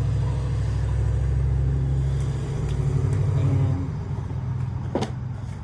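A steady low rumble, easing off a little after about four seconds, with one sharp click near the end.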